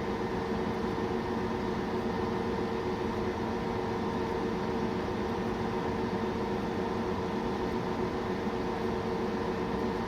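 Biotage Initiator+ microwave synthesizer running: a steady mechanical hum with fan noise and a fixed tone, unchanging throughout.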